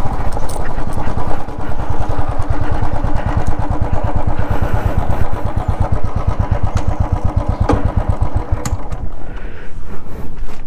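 Royal Enfield 350 single-cylinder motorcycle engine running with an even, rapid low beat, which drops away about nine seconds in.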